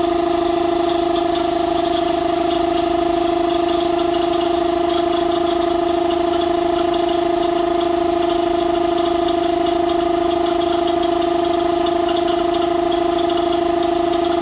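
Homemade belt-driven piston air compressor, powered by a Bosch washing-machine motor, running steadily with an even hum and a fast mechanical rattle.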